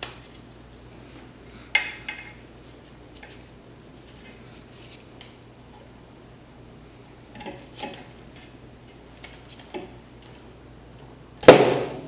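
Metal jaws of a multi-tool wire stripper clicking and snapping as it strips the insulation off the motor's lead wires: a few scattered sharp clicks, then one louder metallic clack near the end.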